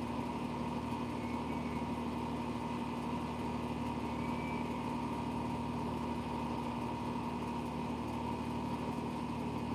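Steady machine hum holding a couple of constant tones, with no change in pitch or level.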